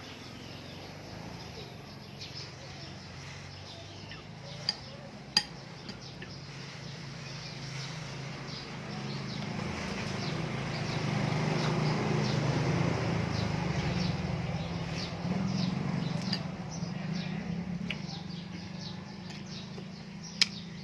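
A few sharp clinks of a spoon or chopsticks against a bowl, over birds chirping. A low hum swells up in the middle and fades away again.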